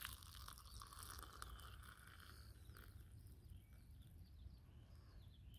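Faint trickle of hot water poured from a metal pot into an enamel mug over a coffee bag, fading out after about four seconds.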